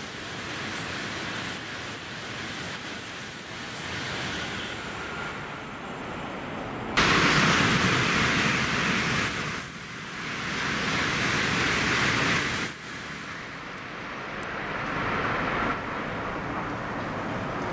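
N700-series Shinkansen trains passing through the station at high speed: a loud, steady rush of wheel and air noise. The rush turns harsher abruptly about seven seconds in, eases off about thirteen seconds in, and falls to a quieter hum near the end.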